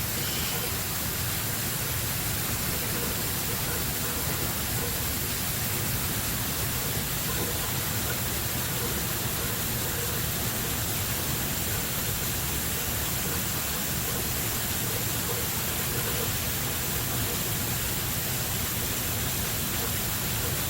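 Steady rushing of water pouring down a partly frozen waterfall, an even hiss at a constant level throughout.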